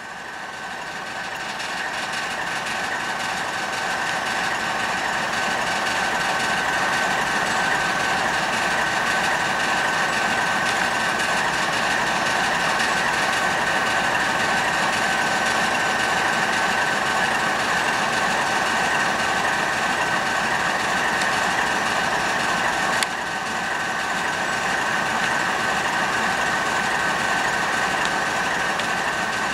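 Pesa Gama class 311D diesel locomotive running steadily at idle: a constant engine noise with a steady high whine over it. The sound fades in over the first few seconds.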